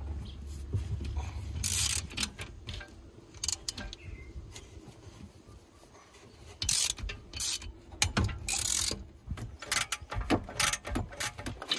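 Ratchet wrench clicking in several short spells, with small metal-on-metal knocks, as bolts are undone on a partly stripped Sea-Doo 951 two-stroke engine.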